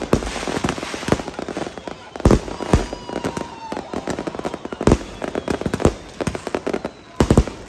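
Fireworks going off: a dense crackle of many small bangs, with heavier bangs standing out several times at uneven intervals.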